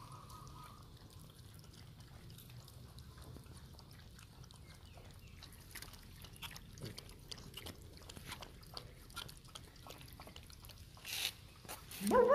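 Puppies licking and lapping yogurt out of plastic cups: a steady run of small wet clicks and smacks. Near the end there is a short, louder noise.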